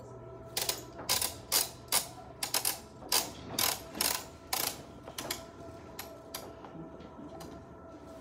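Ratchet winch of a Hare traction splint being cranked to draw the ankle strap tight and put traction on the leg: a run of short ratchet clicks, about two a second, that stops after about five seconds.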